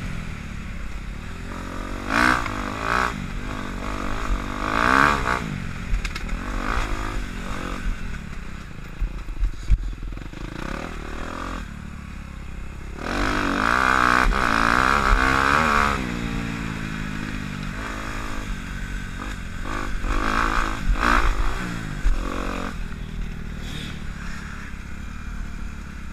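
Dirt bike engine being ridden, its pitch rising and falling again and again as the throttle is opened and closed, with longer surges of acceleration about two, five and fourteen seconds in and again around twenty-one seconds.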